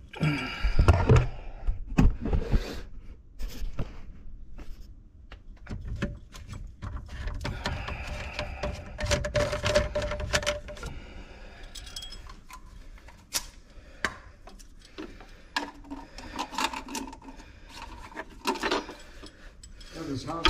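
Irregular knocks, clunks and rattles of garbage disposal parts being handled under a kitchen sink, loudest in the first couple of seconds, with rubbing and scraping between.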